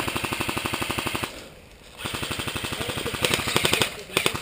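Airsoft electric rifle firing on full auto: a rapid, even clatter of shots in three bursts. The first lasts about a second, the second about two seconds after a short pause, and a third starts near the end.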